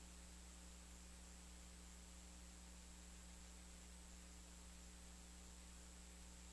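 Near silence: only a faint, steady electrical hum with hiss, an empty audio track's noise floor.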